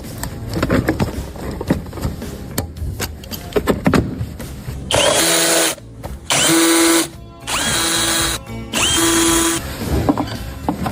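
Power drill running in four short bursts, each spinning up quickly to a steady whine, after a few seconds of metal tools and parts clicking and clattering.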